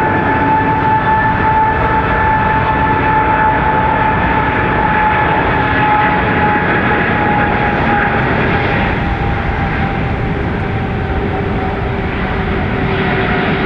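The two GE90 turbofans of a Boeing 777 on the takeoff roll, a loud steady roar with a high fan whine that slowly falls in pitch.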